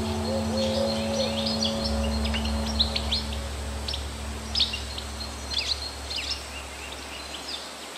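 Birds chirping in short, quick calls over a steady background hiss, with low sustained music notes fading out in the first few seconds. The whole gradually gets quieter toward the end.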